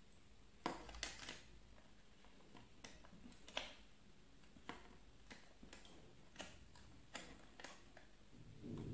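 Light, irregular clicks and taps, about ten of them, as trimmer attachments are pushed into and set down in their stand.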